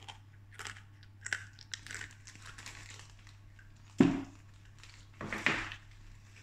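Rustling and crinkling of handled packaging and gift items, with a sharp thump about four seconds in.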